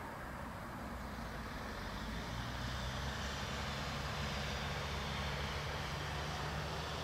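Steady low engine drone from a distant vehicle over outdoor rumble, growing slightly louder from about two seconds in.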